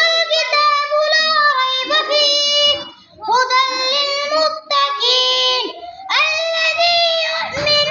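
A child's voice reciting the Quran in the melodic tilawat style, with long, held, ornamented notes, in three phrases with short breaths between them.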